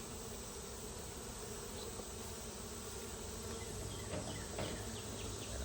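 Honeybee colony buzzing steadily around an opened hive, a continuous hum of many bees, with a few faint taps about four seconds in.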